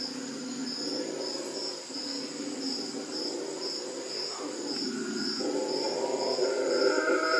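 A chorus of red howler monkeys howling, a deep, rough, continuous roar that eases a little past the middle and swells again near the end. A high insect trill pulses about three times a second above it.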